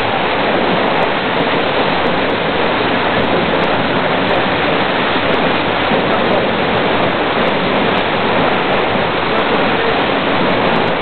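Waterfall: a steady, loud rush of falling water, unbroken throughout.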